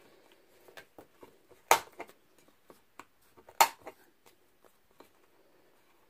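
Hand-held corner-rounder punch snapping through the corners of a laminated colour chart: two sharp snaps about two seconds apart, each followed by a lighter click as the punch is released, with faint handling rustle between.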